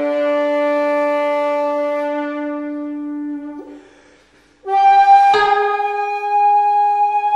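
Shakuhachi and koto playing traditional Japanese sankyoku music: the shakuhachi holds long notes while the koto plucks. The held note fades out about three and a half seconds in, and after a short pause a new shakuhachi note begins, struck together with a koto pluck.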